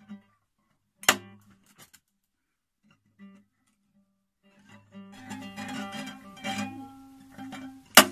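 Nylon-string classical guitar played with needle-nose pliers pressed against the strings. A sharp strike on the strings comes about a second in, followed by a few faint plucks. From about five seconds several notes ring together, some bending in pitch, and another sharp strike comes near the end.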